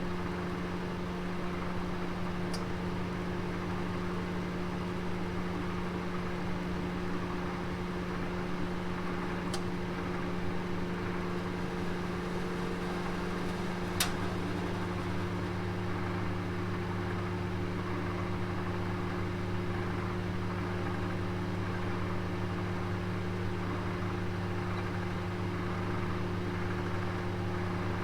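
Oven running with a steady hum, a deeper hum joining about halfway, and a few faint ticks, the loudest about halfway.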